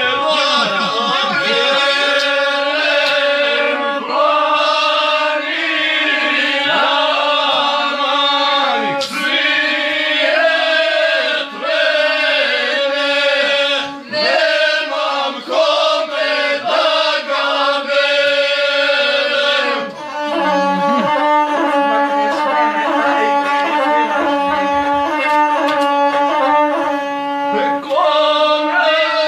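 A man singing a chanted epic song to his own gusle, the bowed single-string fiddle holding steady notes under his wavering voice.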